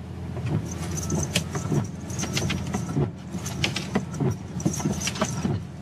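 Inside a car's cabin: a steady low road-and-engine rumble from the moving car, with irregular light ticks and taps over it.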